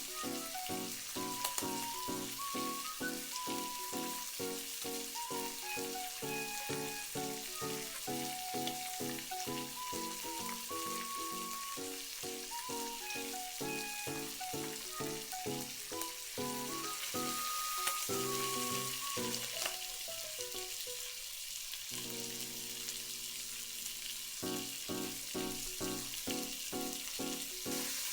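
Egg mixture sizzling and frying in an oiled rectangular tamagoyaki pan, with a steady hiss, under background music with a quick steady beat and a melody.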